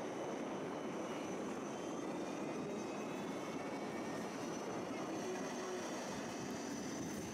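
Tram running, heard from on board as it pulls away from a stop onto a bridge. A steady rumble and hiss of wheels on rail, with a faint rising motor whine in the first few seconds.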